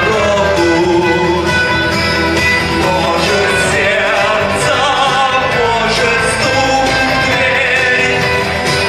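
A rock song with guitar and a voice singing over it.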